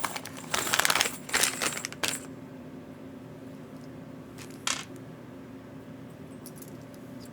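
Loose battery connectors clinking and clattering against each other as they are handled, a busy run of small hard clicks for about two seconds, then a single click a little past the middle. A faint steady hum sits underneath.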